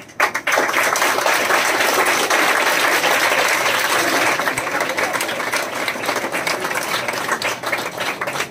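A large group of students clapping together in sustained applause, starting about half a second in and holding steady, thinning slightly near the end.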